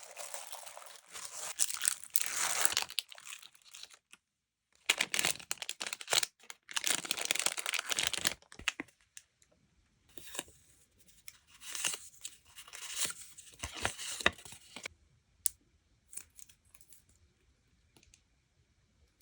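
Packaging crinkling and rustling as it is handled and torn open, in three spells of a few seconds each, followed by a few light taps and clicks.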